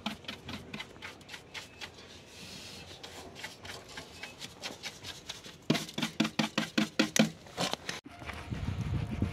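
A small hand tool scraping caked dirt and soil off the rusty metal door-sill floor of a van, in repeated short strokes that turn loud and quick, about five a second, from around six seconds in. After a sudden cut near the end, a low rumbling noise.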